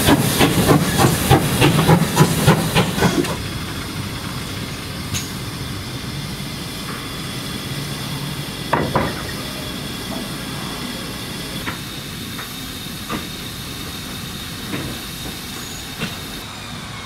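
GWR 2800 Class 2-8-0 steam locomotive moving slowly past, its cylinders venting steam in rapid sharp beats for about the first three seconds. The beats then stop abruptly, leaving a quieter steady hiss with a few single knocks from the running gear and track.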